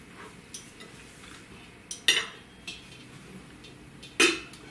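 A metal fork clinking and scraping against a ceramic plate while pulling meat off a piece of fried fish. There are a few sharp clinks, the loudest about two seconds in and again near the end.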